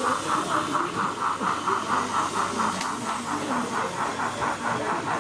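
Sound-fitted model steam locomotive chuffing steadily at about five hissing beats a second as it hauls its train, with a single sharp click a little under three seconds in.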